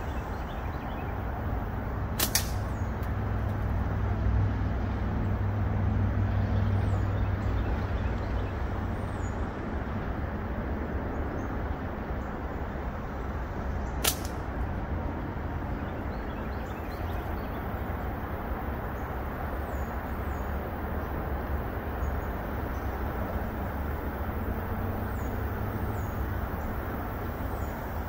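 Two sharp snaps about twelve seconds apart, a slingshot banded with Snipersling .5 flat bands being shot at a target, over a steady low rumble.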